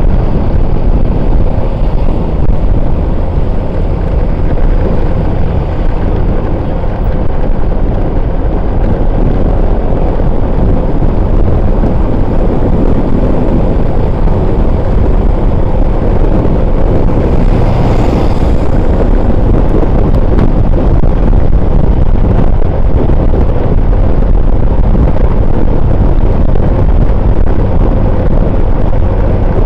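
Steady, loud wind buffeting the microphone over the rumble of a vehicle moving along a road, with a brief hissing swell about eighteen seconds in.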